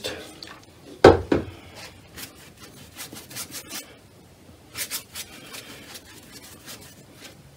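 A 1-inch flat watercolour brush being worked in a plastic palette and over paper, making soft scrubbing and rubbing strokes. There are two knocks about a second in.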